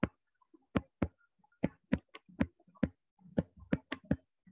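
Stylus tapping and clicking against a tablet surface during handwriting: a string of irregular short, sharp clicks, some close together.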